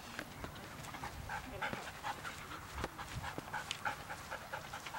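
A dog panting, short breaths following one another quickly.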